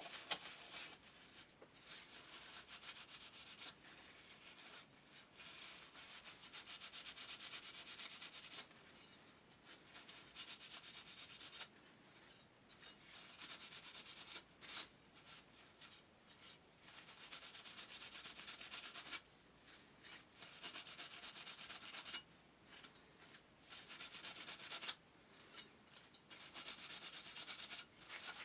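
Faint repeated rubbing, the scrubbing of fan parts being cleaned by hand. It comes in stretches of a second or two, with short pauses between.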